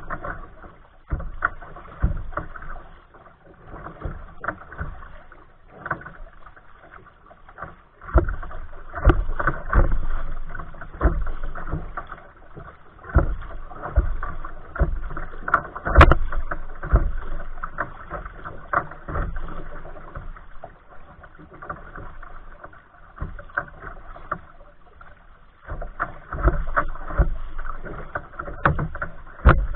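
Water splashing and slapping against a kayak's hull as it is paddled through choppy water, in uneven surges, with one sharp knock about halfway through.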